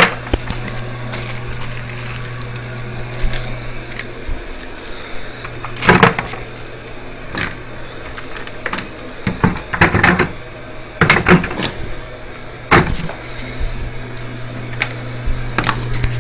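Tools and a plastic bucket being handled and set down on a tiled floor: scattered knocks and clatters, the loudest around six, ten, eleven and thirteen seconds in, over a steady low hum that fades after about four seconds and returns near the end.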